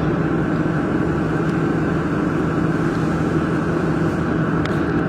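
Steady machinery hum with a low, even drone, and a couple of faint ticks near the end.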